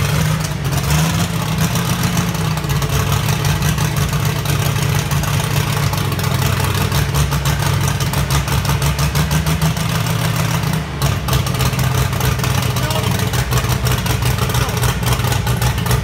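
Turbocharged, methanol-fuelled pulling-tractor engine running steadily at its first fire, its exhaust pulses coming fast and even, with a brief dip about eleven seconds in.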